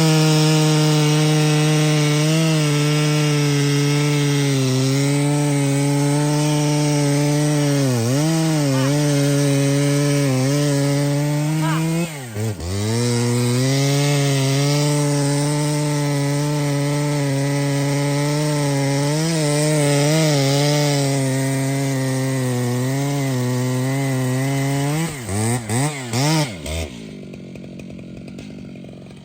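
Large two-stroke chainsaw cutting wood at full throttle, its pitch sagging slightly under load. About twelve seconds in it briefly drops off throttle and picks up again. Near the end it is blipped several times, then eased back.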